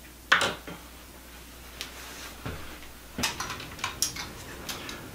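Clatter from handling plumbing parts: a sharp click about a third of a second in, then scattered small clicks and rattles that gather from about three seconds on.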